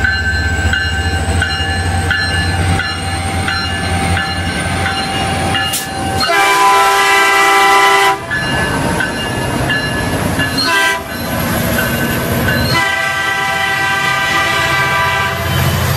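Caltrain MP36 diesel locomotive passing, its engine running low and steady with the wheels clicking over the rail joints. Then a multi-chime train horn blows a long blast, a short one and another long blast.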